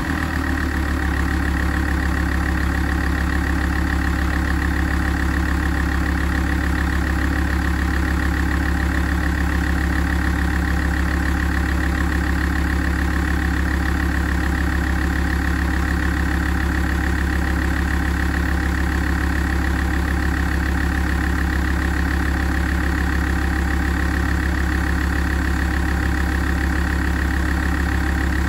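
Alfa Romeo 166 2.4 JTDm five-cylinder diesel idling steadily while warming up.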